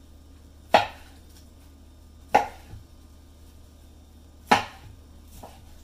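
Knife slicing through a smoked beef rib and striking the cutting board: three sharp knocks spaced about one and a half to two seconds apart, with a couple of fainter taps between them.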